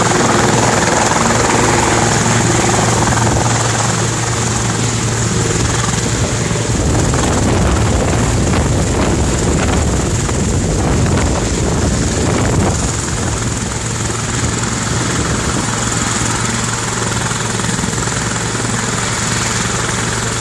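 Medical helicopter on the ground with its rotor turning at speed, a loud steady drone with a constant high whine above it.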